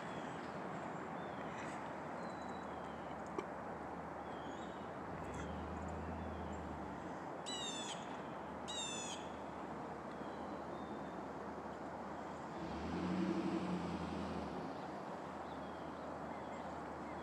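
Wild birds calling at a feeding tree: scattered short, falling chirps, and two brief harsh calls close together about eight seconds in. Under them, a low engine hum from a vehicle swells twice and is loudest about thirteen seconds in.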